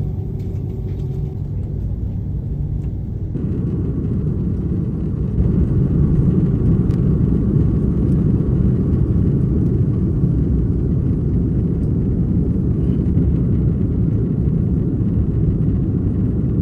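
Airbus A330-300 jet engines and airflow, heard as a steady low rumble inside the cabin while taxiing and taking off. The sound changes abruptly about three seconds in and is louder from about five seconds in as the takeoff roll and climb go on.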